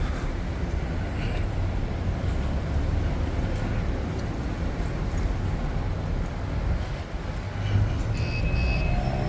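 Outdoor city traffic ambience: a steady low rumble of road traffic. Near the end come two short high-pitched beeps.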